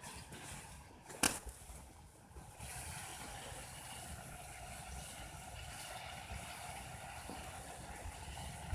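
Meat and vegetables sizzling faintly in a pot over a campfire, the sizzle steadying and growing a little louder a few seconds in, with a single sharp clink about a second in and a low rumble underneath.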